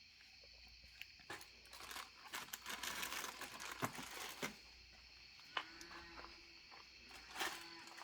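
Handling noise: rustling and crinkling with sharp clicks, busiest from about two to four and a half seconds in, followed by a few single clicks and a faint wavering tone near the end.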